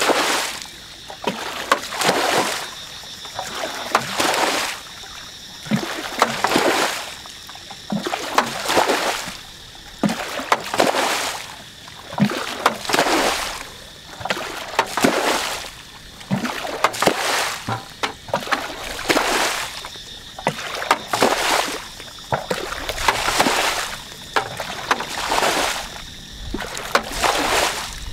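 Muddy water being bailed out of a flooded rice-paddy ditch with a plastic bucket: a scoop and a splashing pour about every two seconds, in a steady rhythm, as the ditch is drained to catch the fish by hand.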